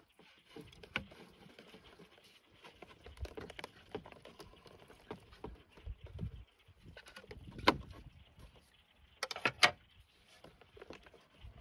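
Scattered clicks, taps and scrapes of hands working a cracked thermoplastic coolant Y-pipe loose from its hoses and fittings. A sharp knock comes about two-thirds of the way through, and a quick cluster of louder clicks follows soon after.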